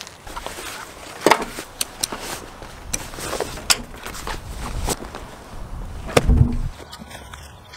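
Folded inflatable camper shell and its nylon carry bag being handled and unfolded on a pickup's tailgate: fabric rustling and scraping with several sharp knocks and clicks, and a heavier thump about six seconds in.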